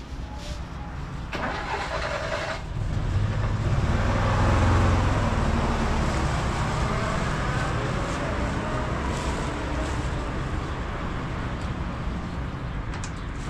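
Car engine running, growing louder about three seconds in, peaking a second or two later and then settling to a steady run.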